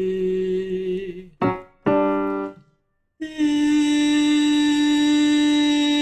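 A woman's singing voice holds a note on an 'ee' vowel that fades out about a second in. A digital piano is struck twice, giving a reference pitch. After a brief gap she sings a long 'ee' that slowly slides down in pitch, as in a vocal slide exercise.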